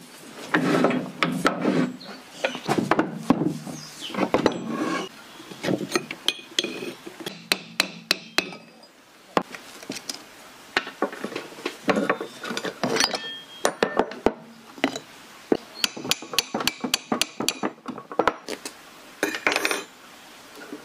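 Rusty parts of a 1972 lathe's carriage and compound rest being taken apart by hand: irregular metal clinks and knocks as pieces are turned, pulled and set down, with stretches of scraping and rubbing in between.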